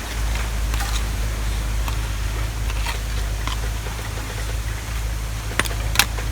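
A steady low rumble with scattered light clicks and taps, one sharper click near the end.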